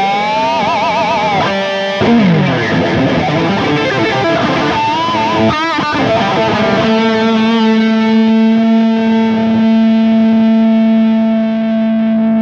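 Old Charvel electric guitar played with a distorted tone: wide vibrato bends and a sliding note, then about seven seconds in a single note held and sustaining steadily to the end.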